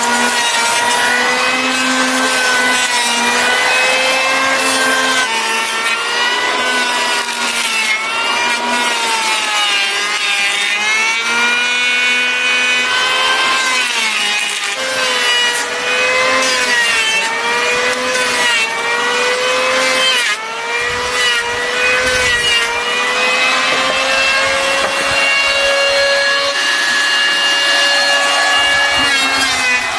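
Electric hand planer running without a break, its motor whine dipping and recovering in pitch over and over as the blade shaves the wood.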